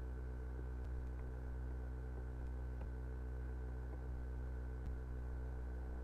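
Steady low electrical hum picked up by the recording microphone, with a few faint computer-mouse clicks.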